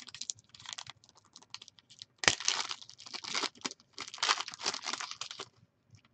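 Plastic card sleeve and wrapping crinkling and rustling in the hands while a trading card is handled, in irregular bursts, with one sharp click a little over two seconds in.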